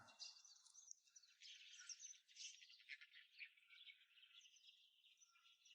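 Faint, scattered high chirping of small wild birds.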